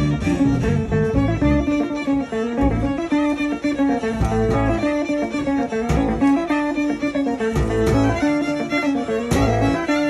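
A small band playing a Bulgarian horo dance tune: violin carrying the melody over electric bass, keyboard and a plucked string instrument, driven by an uneven, pulsing beat.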